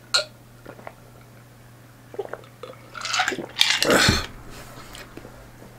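Drinking from a tall glass of an iced drink: small sips, swallows and ice clinks against the glass, then a louder clatter about three and a half seconds in as the glass is set down on the table.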